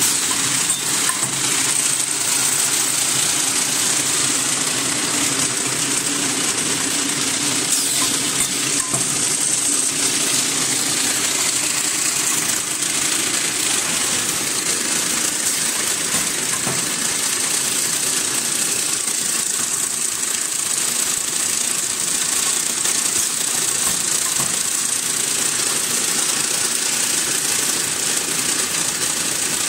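Automatic paper straw counting and packing machine running steadily, with a constant mechanical hum and hiss and light clicking as the straws are counted and carried along in bundles.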